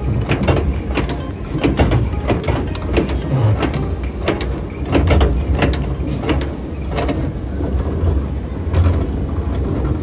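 Amusement-ride machinery running while riding in the car: a steady low rumble with frequent irregular clicks and clanks, several a second.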